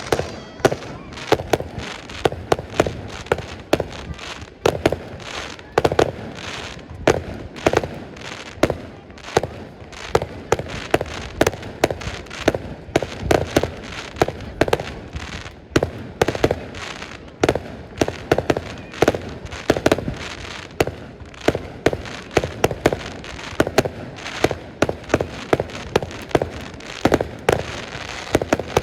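Fireworks display: aerial shells bursting in a rapid barrage, sharp bangs several a second with a crackling haze between them.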